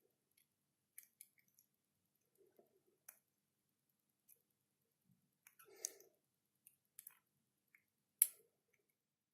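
Faint, scattered metallic clicks from a pick and tension tool working the pins of a Titan dimple Euro cylinder lock during picking. A small cluster of clicks comes about six seconds in, and the sharpest single click near the end.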